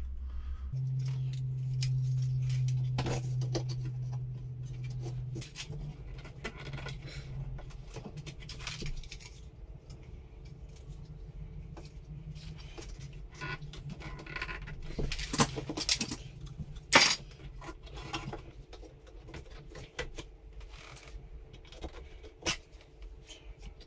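Plastic mounting brackets being handled and fitted onto a plastic washing machine outlet box: scattered light clicks, taps and rattles, with a louder click about seventeen seconds in, over a low steady hum.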